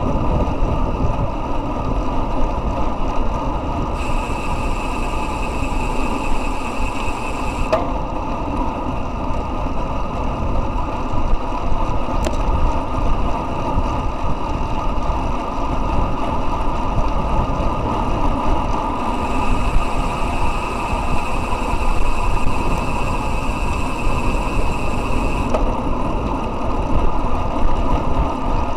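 Wind rushing over a handlebar-mounted camera's microphone on a road bike at about 40 km/h, with the tyres rolling on asphalt. A faint high tone comes and goes twice over the rumble.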